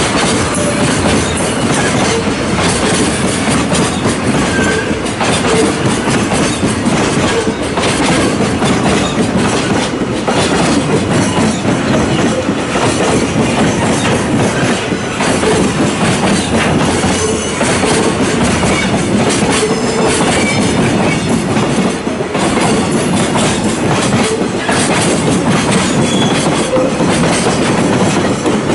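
Container wagons of a freight train rolling past close by: a steady loud rumble of steel wheels on rail, clattering over the rail joints, with brief faint wheel squeals now and then.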